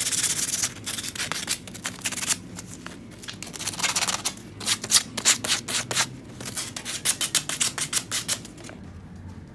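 Sandpaper rubbed by hand along the cut edge of a metal bar in rapid back-and-forth strokes, clearing off leftover metal slivers after cutting. The strokes come in several runs with short pauses between and stop shortly before the end.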